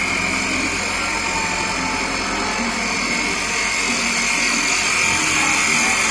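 Two-spindle CNC wood lathe turning beechwood with carbide cutters. A steady high whine runs over the continuous hiss of the cutters peeling off shavings.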